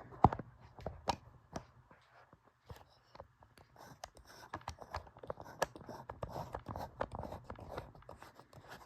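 Irregular light clicks and knocks from things being handled, the sharpest one just after the start.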